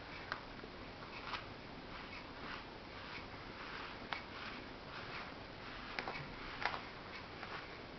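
A comb drawn through a cat's fur in short, soft raspy strokes, with a few sharp clicks.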